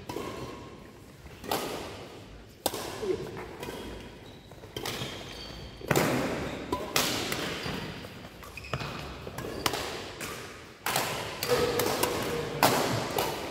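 Badminton rally: rackets striking a shuttlecock, a dozen or so sharp hits at an uneven pace, each echoing around the hall, with brief squeaks of shoes on the court floor between them.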